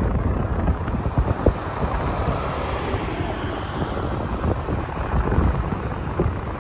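Strong wind buffeting the microphone: a continuous low rumble with irregular gusty peaks.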